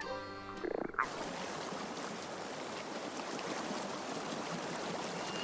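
A dense chorus of many toads calling together at a breeding pond. In the first second, accordion music ends before the chorus takes over.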